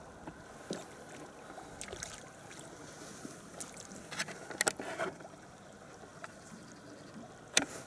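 River water lapping, with a few sharp clicks and small splashes in the middle and one louder click near the end.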